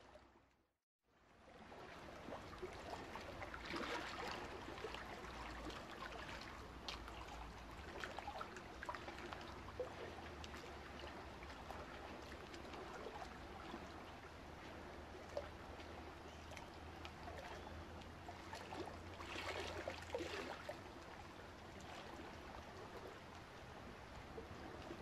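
Steady trickling and rushing of water circulating through a reef aquarium. It swells louder about four seconds in and again around twenty seconds, after the sound drops out completely for a moment near the start.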